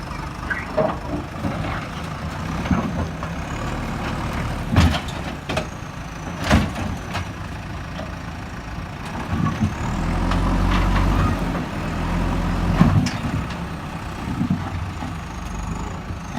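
JCB backhoe loader's diesel engine running, growing louder under load for a few seconds past the middle, with a few sharp knocks along the way.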